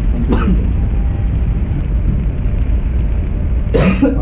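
A person lets out one loud, sharp burst of breath from the mouth, of the cough or sneeze kind, near the end, with a shorter throat sound about half a second in. A steady low rumble runs underneath.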